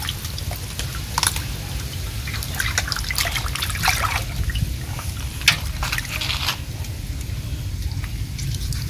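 Water splashing and dripping in irregular spurts, over a steady low hum.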